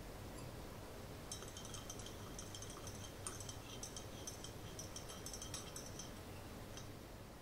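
A small metal wire whisk stirs milk and lemon juice in a glass measuring cup, its wires clinking against the glass in quick, irregular ticks. The clinking starts about a second in and stops near the end.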